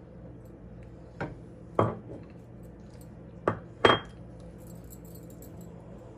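Four sharp clinks and knocks against a frying pan, in two pairs a couple of seconds apart, the last ringing briefly, as cream is worked into the sauce with a spatula. A low steady hum lies underneath.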